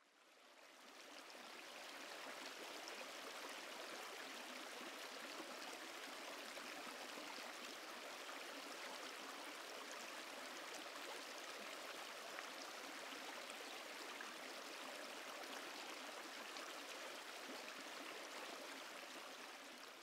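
River water flowing steadily, faint, with fine splashing running through it. It fades in over the first couple of seconds and fades out near the end.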